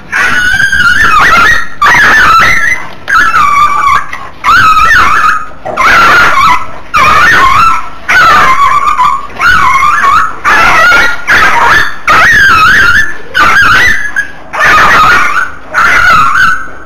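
Small dog yelping and shrieking in pain and fear while being attacked by two larger dogs: a loud run of long, wavering cries, about one a second.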